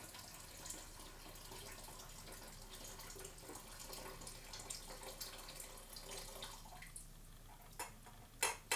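Hot water poured in a thin steady stream from a stainless steel kettle into a plastic pitcher over sugar, fading out about seven seconds in; a few sharp clinks come near the end.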